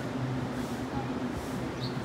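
Railway platform ambience: a steady low machine hum, with a short high chirp near the end.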